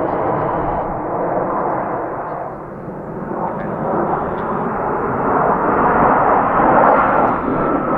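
Formation of Black Eagles KAI T-50B jets flying past with a steady jet-engine rush. It dips about two and a half seconds in, then swells louder toward the end, where a high whine starts gliding slowly downward.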